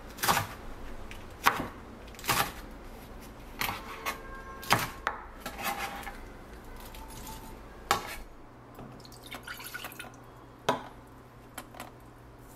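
Chef's knife slicing green chillies on a wooden cutting board: the blade knocks on the board roughly once a second, unevenly. After about eight seconds the knocking stops, leaving a few light clicks over a low hum.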